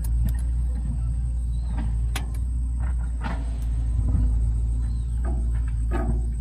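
A steady low machine rumble with scattered short knocks and clicks over it.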